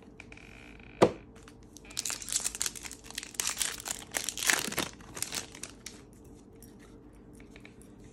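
A trading-card pack's foil wrapper being torn open and crinkled by hand: one sharp knock about a second in, then about three seconds of crackling and tearing.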